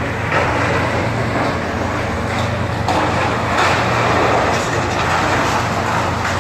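Demolition machinery running with a steady low engine drone, over a rough, grinding noise of debris being broken, with a few sharp cracks.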